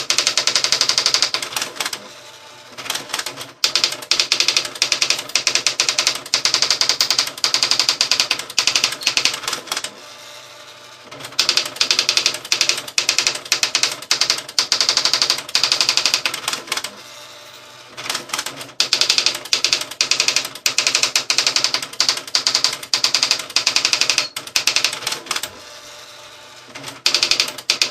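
Olivetti ET Personal 510 electronic daisy-wheel typewriter typing out its built-in auto demo by itself: rapid machine-gun strokes in runs of several seconds, broken by short pauses about every seven or eight seconds.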